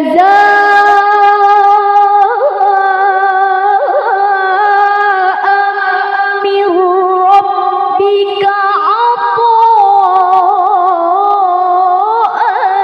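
A woman's Quran recitation in the melodic tilawah style, amplified through a handheld microphone: one long high phrase sung without a break, held on a steady pitch with wavering ornamental turns, beginning abruptly right at the start.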